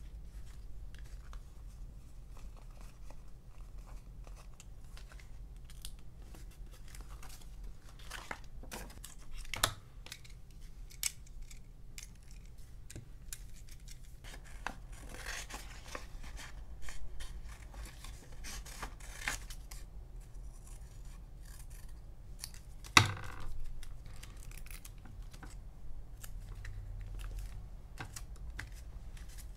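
Scissors cutting through a paper sticker sheet in short, irregular snips, with paper rustling as the pieces are handled. One sharp click stands out about three-quarters of the way through.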